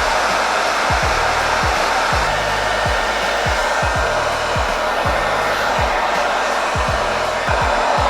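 Handheld hair dryer blowing steadily, used in place of a heat gun to shrink heat-shrink wrap. A faint low pulse repeats underneath about every two-thirds of a second.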